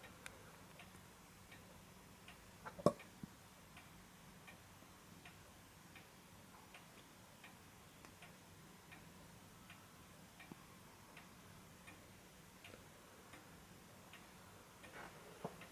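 Two-weight Vienna regulator wall clock ticking steadily and faintly, about four ticks every three seconds. A single sharp knock sounds about three seconds in.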